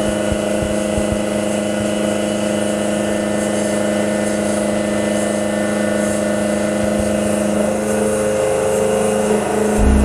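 CNC-converted Sieg X2 mini mill cutting a metal block with an end mill: the spindle motor and the cut give a steady whine over a hiss of coolant spray. The tone shifts about eight seconds in, and a low thump comes at the very end.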